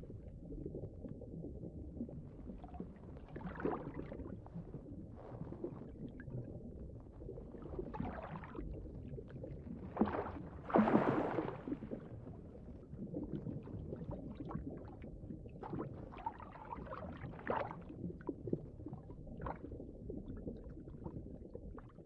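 Underwater ambience: a steady low rumble with swishing, gurgling swells of water every few seconds, the loudest about ten to twelve seconds in.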